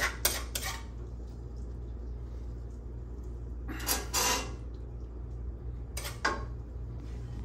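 Fork clinking and scraping against a stainless steel pan and a ceramic plate while pasta is served: a couple of short clinks near the start, a cluster about four seconds in, and another near six seconds.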